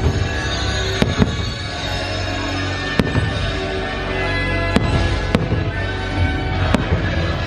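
Aerial firework shells bursting in sharp bangs, about seven of them at irregular intervals, over the show's music playing steadily from park speakers.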